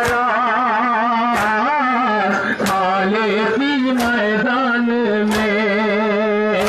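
A man's voice chanting a nauha, a Shia mourning lament, in long wavering notes. Sharp strokes land together at a steady beat a little over a second apart, fitting the mourners striking their chests in unison (matam).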